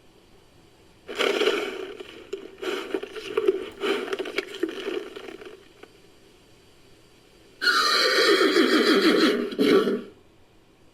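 Creature sound effect built from a horse's whinny: a run of broken, uneven neighing calls starting about a second in, then, after a pause, one loud whinny lasting about two seconds with a falling pitch.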